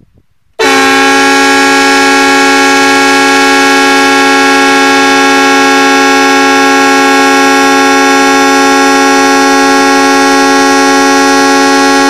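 Train-style air horn fitted to a Trabant 601, sounding one long continuous blast. It starts suddenly about half a second in and holds a steady chord of several notes without a break.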